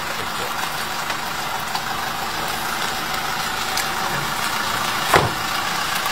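SUV engine idling steadily, with a car door slamming shut about five seconds in.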